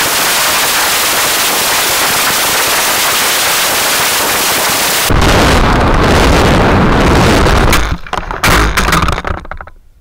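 Steady loud rushing wind noise on the microphone of a camera riding on a model rocket during its parachute descent, sped up twenty times. About five seconds in it turns rougher and deeper. Near the end it breaks into irregular bursts and falls away as the rocket comes to rest on rocks.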